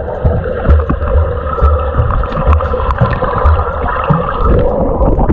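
Muffled underwater sound of a swimming pool heard through a submerged camera: a steady rush of water with low rumbling and bubbling as a swimmer moves underwater.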